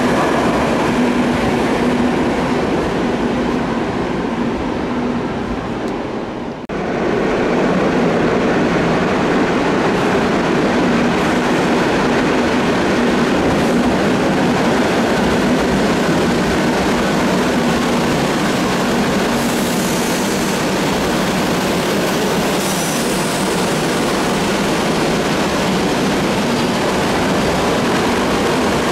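Madrid Metro trains moving through an underground station: a steady, loud rumble of wheels and motors, with a low steady hum running under it. The sound drops out briefly about six and a half seconds in, then carries on.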